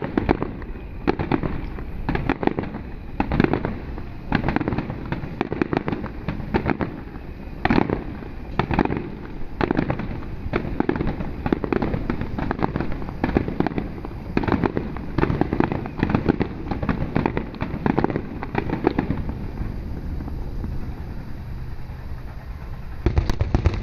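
Aerial fireworks shells bursting in quick succession, a dense run of booms and crackling bangs. The bursts thin out and ease off about three-quarters of the way through, then a loud cluster comes again near the end.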